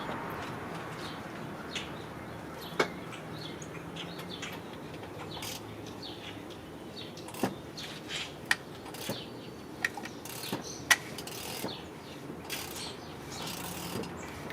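Scattered, irregular metallic clicks and clinks of a wrench on the crankshaft bolt as the engine is turned over by hand to check the cam timing, with a faint steady hum underneath.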